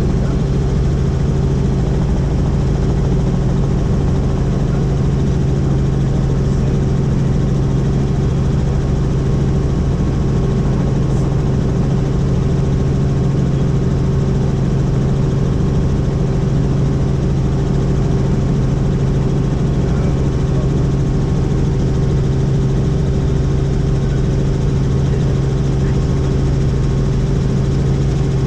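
Helicopter's engine and rotor running in a steady drone, with a constant low hum that does not change.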